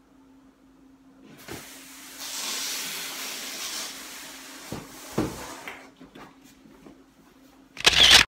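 Padded fabric carry bag dragged and lifted out of a cardboard box: a few seconds of rustling and scraping with several knocks. A short loud burst of noise near the end.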